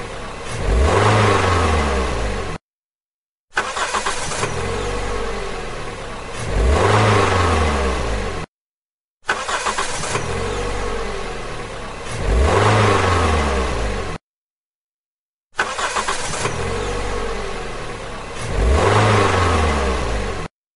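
Vehicle engine sound, the same few-second clip heard four times with dead silence between: each time the engine runs steadily, revs up in pitch and loudness, and settles back.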